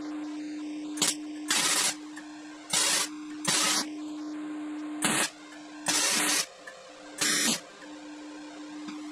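MIG welder laying tack welds on steel tube: about seven short bursts of arc crackle, each under a second, with a steady hum underneath.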